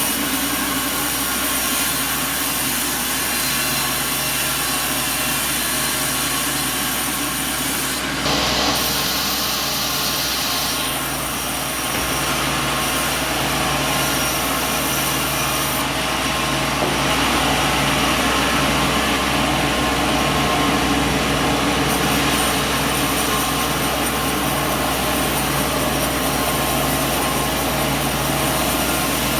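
Sawmill saw and its drive motor running steadily, cutting wood, with a steady machine hum underneath. The sound changes character about eight seconds in.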